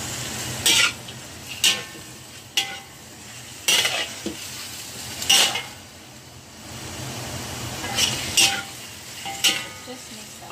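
Metal ladle scraping and knocking against a wok as goose feet and sea cucumber are stir-fried over a steady sizzle. The strokes come about once a second, with a pause of a couple of seconds midway.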